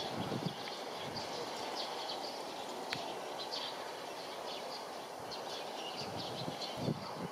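Small birds chirping again and again over a steady low outdoor rumble, with a sharp click about three seconds in.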